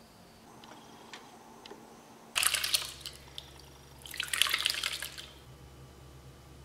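Curds and whey poured from a slow-cooker crock into a mesh strainer, splashing in two bursts, as the whey is drained off the homemade cottage cheese.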